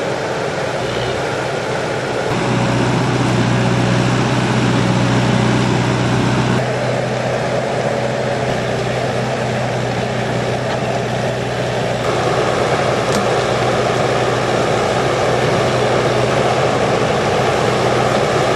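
Heavy equipment diesel engine running steadily, a continuous drone under mechanical noise. The character of the sound shifts abruptly about two, six and twelve seconds in.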